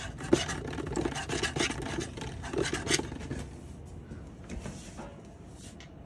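A metal palette knife scraping thick paint across the wooden roof of a birdhouse in a run of short strokes. The strokes stop about halfway through.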